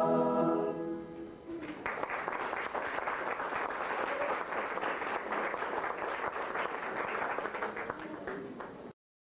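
A mixed choir holds its last chord, which dies away about a second and a half in. The audience then applauds until the sound cuts off abruptly near the end.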